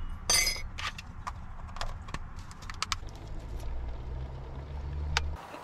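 A metal teaspoon clinking and tapping against a ceramic mug as a drink is stirred: a string of short, light clinks, the loudest one about a third of a second in. A low hum sits underneath from about halfway and cuts off suddenly near the end.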